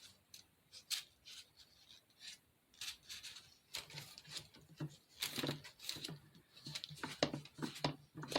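White spackle being spread over a small foam block, giving irregular short scraping and light tapping strokes.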